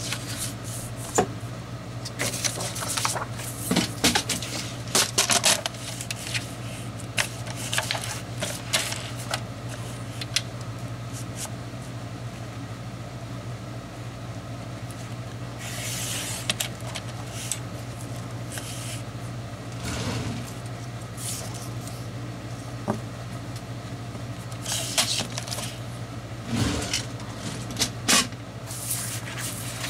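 Sheets of scrapbook paper and cardstock being handled on a cutting mat: scattered rustles, slides and light taps, with a paper trimmer blade sliding through a sheet about halfway through, over a steady low hum.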